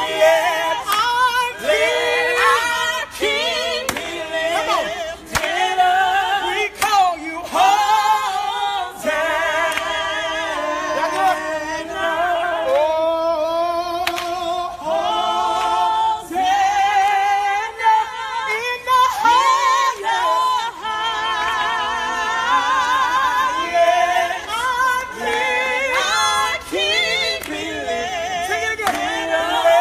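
A group singing a gospel worship song a cappella, the voices wavering with vibrato.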